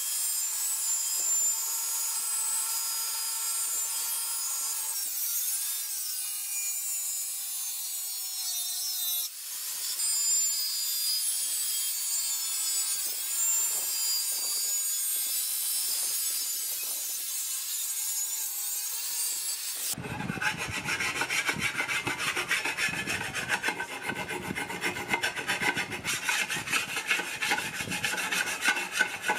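Angle grinder cutting through a galvanized steel channel, a steady high whine that breaks off for a moment about nine seconds in. About twenty seconds in it gives way to quick, even rasping strokes of a hand file on the steel.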